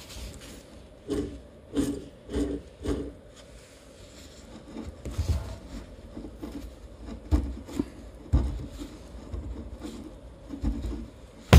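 A run of knocks and clunks with some light scraping: four quick knocks in the first three seconds, then scattered, softer ones.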